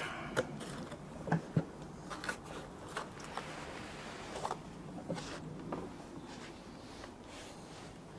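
New brake pads being handled: irregular light clicks and taps with some rustling, the sharpest knocks in the first two seconds.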